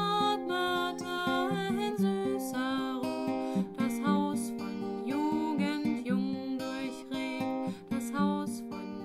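Background music led by plucked acoustic guitar, with a melody line of many short notes.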